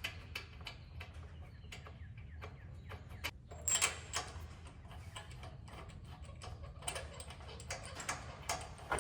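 Ratchet wrench with a spark plug socket clicking in short irregular runs as a new spark plug is run into the engine's cylinder head, with a louder cluster of clicks about four seconds in.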